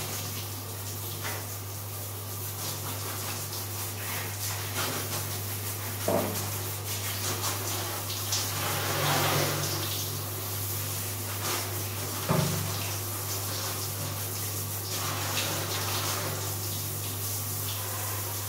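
Handheld shower sprayer running, spraying water over a small dog and the tiled floor, under a steady low hum. Two sharp knocks come about six and twelve seconds in.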